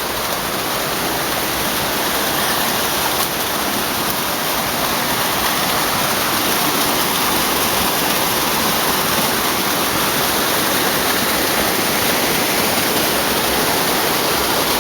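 Waterfall on a river, falling water rushing steadily; it grows a little louder over the first few seconds, then holds even.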